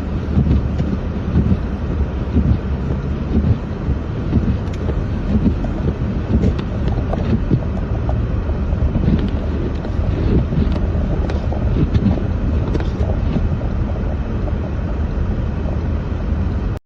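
Strong wind buffeting the microphone in a snowstorm: a loud, gusting low rumble that swells and dips irregularly.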